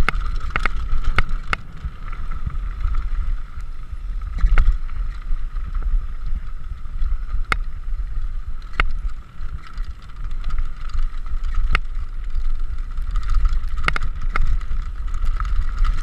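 Downhill mountain bike rolling fast over a rocky dirt fire road: heavy wind rumble on the camera microphone, a steady high buzz, and scattered sharp knocks and clatter as the bike hits stones.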